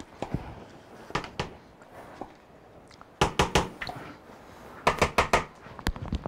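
Sharp knocks and clatters of a measuring cup tapping against a plastic mixing bowl as shortening is emptied into the flour: a couple of knocks about a second in, then quick flurries of several knocks about three seconds in and again about five seconds in.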